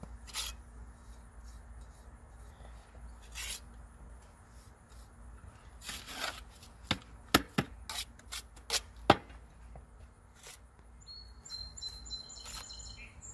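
Steel tuck pointer scraping mortar off a trowel and pressing it into brick head joints: scattered scrapes and sharp clicks, with a quick run of clicks in the middle. Birds chirp faintly near the end.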